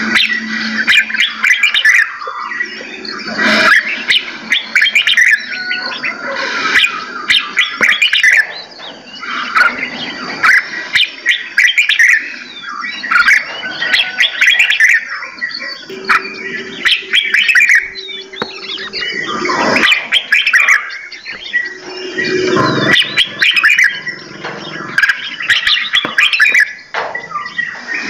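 Many caged songbirds in an aviary chirping and singing at once, a dense overlapping chorus of short calls and trills, with a few lower, longer held notes mixed in during the second half.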